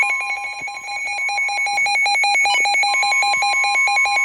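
Weather alert radio sounding its alarm for an incoming severe thunderstorm warning: a loud, rapid pulsing beep with a steady tone beneath it. It cuts off near the end.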